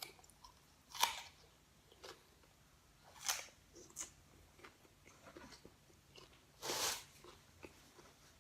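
Crisp green guava being bitten and chewed close to the microphone: sharp crunches about a second in and a little after three seconds, softer chewing clicks between them, and a longer crunch near the end.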